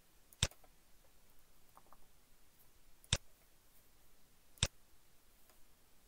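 Three sharp computer mouse clicks, a second or two apart, over a faint room background.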